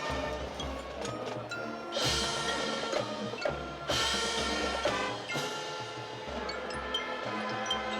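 High school marching band playing a halftime piece, with mallet percussion prominent and cymbal crashes about two and four seconds in.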